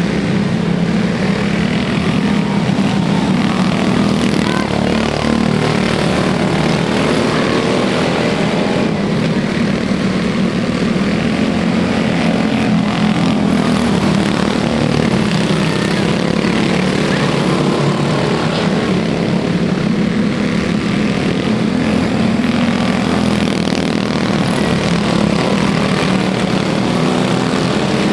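Quarter midget race cars running at speed: a continuous, steady buzz of small single-cylinder engines.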